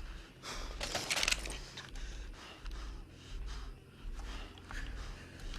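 Heavy, tense breathing, with short noisy breaths or rustles, over a low rhythmic pulse that repeats steadily.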